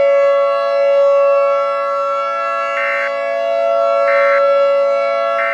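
Emergency warning siren sounding a steady, unchanging chord of tones. A short higher tone blips in about every second and a half from about three seconds in.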